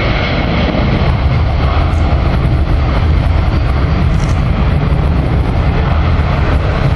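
Boeing 747 freighter's four jet engines at takeoff thrust as it accelerates down a wet runway and rotates. The noise is loud and steady, heaviest in the low pitches.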